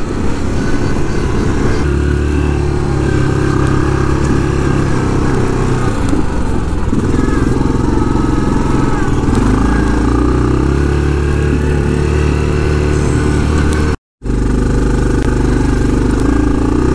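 Yamaha Grizzly 700 SE quad's single-cylinder four-stroke engine running under way on an off-road track, its pitch rising and falling a few times with the throttle. The sound cuts out completely for a moment about three-quarters of the way through.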